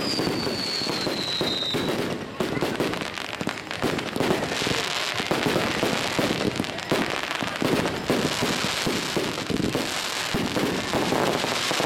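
Fireworks going off: a dense run of crackling and bangs, with a high whistle that falls slightly in pitch over the first two seconds and a hissing crackle that swells from about four seconds in.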